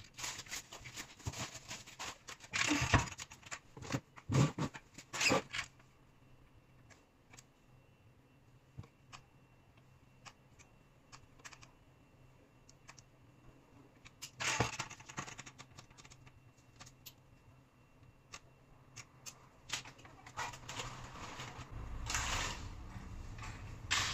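Handling noises at a cabinet: a run of sharp knocks and clatters in the first few seconds, then a quiet stretch with faint ticks, a single knock in the middle, and rustling near the end.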